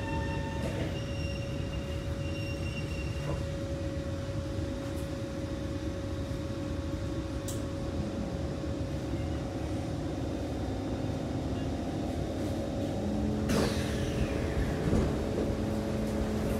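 Inside a Kawasaki C151 metro car just come to a stop: a steady hum from the train's equipment, then about three-quarters of the way through a sudden loud rush of noise as the doors open, followed by a low steady tone.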